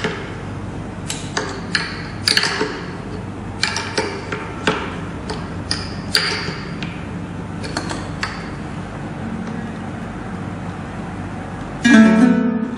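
Plastic string winder turning an Enya ukulele's tuning peg to tighten a newly fitted string, with scattered clicks and taps. Near the end a single ukulele string is plucked and rings, checking that the new string has come up to pitch.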